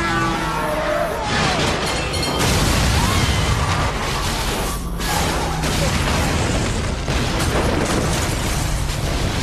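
Movie soundtrack of an earthquake destroying a city: a continuous deep rumble with booming, crashing debris, mixed with film music.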